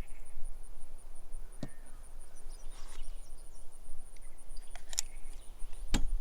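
Outdoor ambience with a steady low rumble and a faint, steady high-pitched whine, broken by a few short sharp clicks of equipment being handled: about a second and a half in, and twice near the end.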